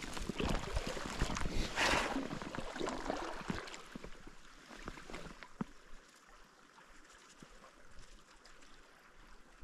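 River water sloshing and splashing close by for the first few seconds, then fading to the faint, steady flow of the river with a few small clicks.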